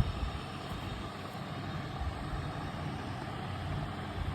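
Roland E09 keyboard's speaker putting out a steady low hum and hiss instead of sound: the noise fault, which the repairer traces to a faulty sound IC. A short thump at the very start.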